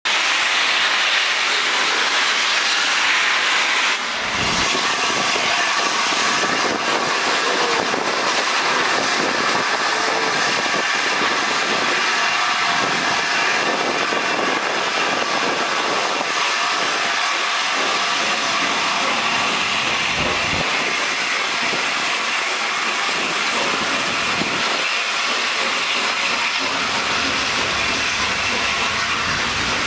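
LNER Peppercorn A1 No. 60163 Tornado, a three-cylinder 4-6-2 steam locomotive, pulling away from a stand with a loud, steady hiss of steam as it and its coaches run past over the rails.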